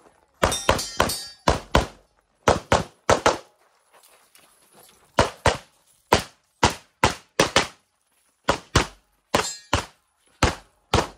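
Walther PDP Steel Frame 9mm pistol fired rapidly in a USPSA stage: about two dozen shots, mostly in quick pairs, with a break of about a second and a half some three seconds in.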